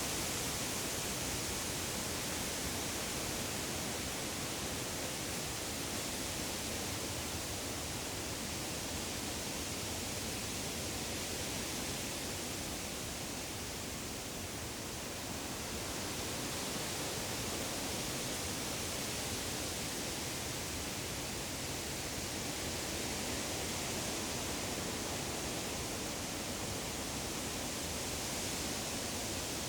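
Wind rustling through the leaves of deciduous trees as a steady, dense rush, easing slightly about halfway through and then swelling again.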